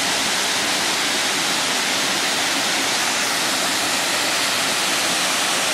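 Waterfall: water pouring over rock ledges in a steady, loud rush.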